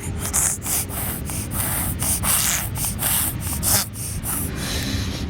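A baby snorting and snuffling through a snotty, congested nose: a quick run of short, hissing breaths in and out.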